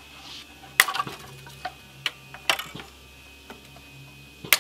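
Scattered sharp metallic clicks and clinks of metal parts being handled, about five in all, the loudest about a second in and just before the end, over a steady low hum.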